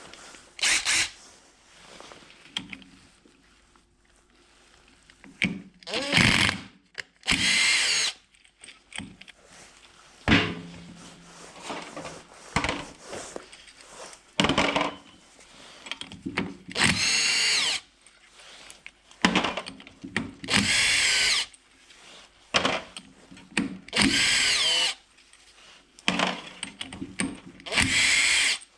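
Handheld electric power tool, a drill/driver type, run in short bursts of about a second each, roughly ten times, the pitch bending as it spins up and loads. Quieter clinks and handling noises come between the bursts.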